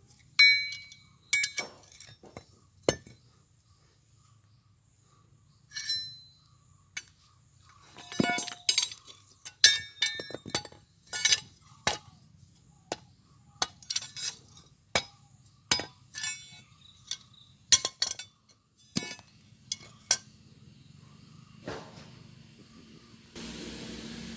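Hand hammer striking steel on an anvil in an irregular run of sharp, ringing clinks, sparse at first and then quick and close together. A steady hiss starts just before the end.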